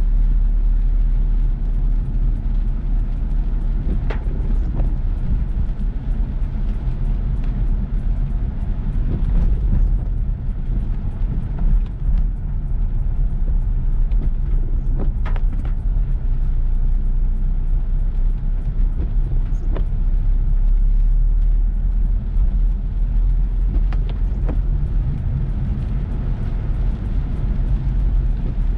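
Car being driven through heavy rain: a steady low rumble with a haze of noise over it, and a few scattered sharp taps or knocks.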